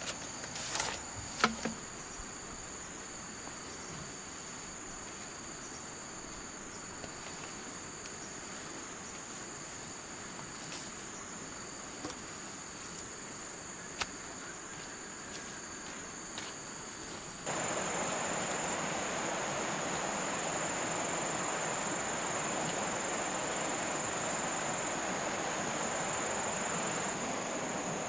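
Insects trilling steadily at a high pitch, with a few faint clicks in the first seconds. About two-thirds of the way through, a louder steady rushing noise sets in abruptly under the insects and continues.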